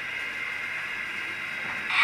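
Steam locomotive sound from the Zimo MX645R sound decoder in a Hornby 'Lord Nelson' model, played through its small 28 mm speaker as the model moves slowly: a steady hiss that turns abruptly louder right at the end.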